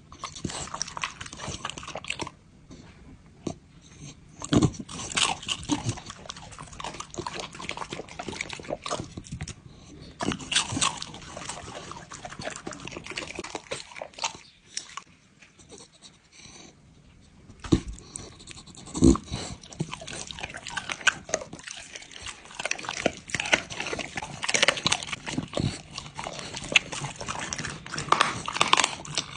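A dog eating raw meat from a hand: irregular wet chewing, biting and lip-licking sounds, with a quieter spell about halfway through.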